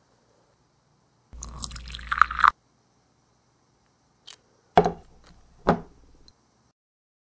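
Tea poured from a miniature toy teapot into a tiny cup for about a second, then a click and two light knocks as the little teapot and cup are set down on the table.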